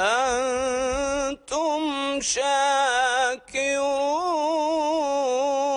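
A man reciting the Quran in the melodic tajweed style, stretching the words 'fa-hal antum' into long ornamented notes whose pitch wavers and bends. He breaks off briefly twice.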